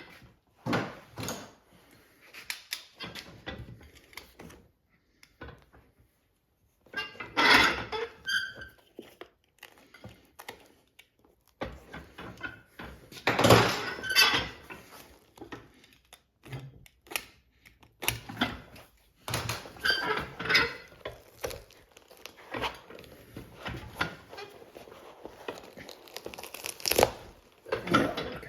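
Irregular knocks, clatter and scraping of hand tools and boot parts handled on a workbench as old boots are stripped down, with louder bunches of activity every several seconds.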